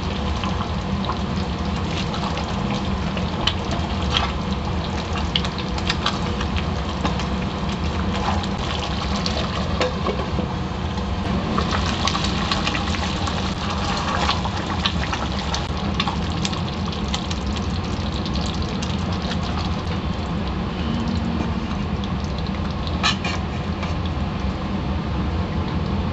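Butter chicken gravy simmering and bubbling in a pan on a gas stove, under a steady low rush, with a silicone spatula stirring and scraping the pan now and then.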